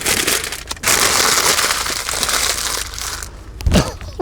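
Food wrapper being crumpled and crushed in the hands: a dense crinkling that stops about three seconds in. A short low sound follows near the end.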